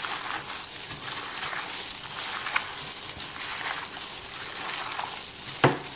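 Wet squelching and squishing as soaked mushrooms are squeezed and kneaded by a gloved hand in a stainless steel bowl, working an egg and rice-flour coating into them. There is one sharp, louder sound near the end.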